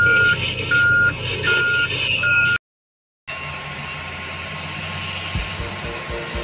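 Heavy mining machine's back-up alarm beeping, four beeps about three-quarters of a second apart, over a large diesel engine running; it cuts off sharply. After a moment of silence, a steady hum with background music coming in near the end.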